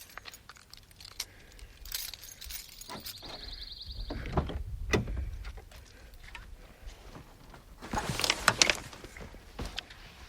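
Jangling, clicking and rattling of small hard objects being handled. A short high steady tone sounds about three seconds in, and there is a louder burst of clatter around eight seconds.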